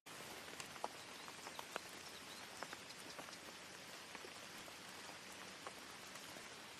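Rain ambience: a steady hiss of falling rain with many small drops ticking irregularly.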